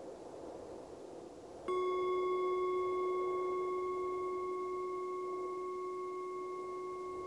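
Singing bowl struck once a little under two seconds in, ringing with a low steady tone and several higher overtones that fade slowly, over a soft rush of wind.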